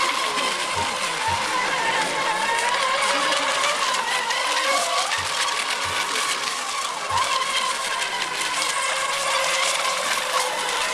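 Electric RC racing boats running at speed on the water. Their motors make a steady high whine that wavers slightly in pitch over a hiss of spray, with a few soft low bumps.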